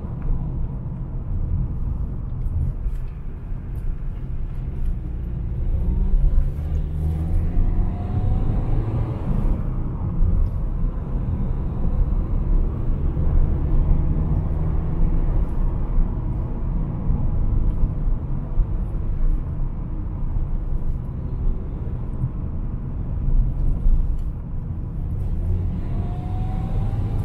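A car driving, heard from inside: steady engine and road rumble, with the engine pitch rising a few times as it speeds up.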